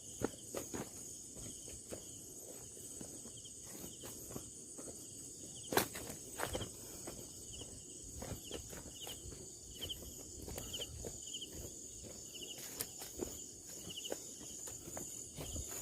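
Footsteps and rustling over a steady, high-pitched drone of insects, with one sharper knock about six seconds in. Short high chirps repeat through the second half.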